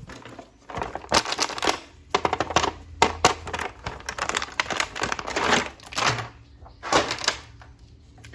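Hands unwrapping a toy action figure from its plastic packaging: a quick run of crinkling rustles and sharp clicks that pauses briefly near the end.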